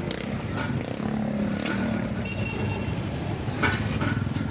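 Engine hum and road noise of slow, dense city traffic, with cars and motorbikes close by. A few short hissing sounds come through, one about half a second in and another near the end.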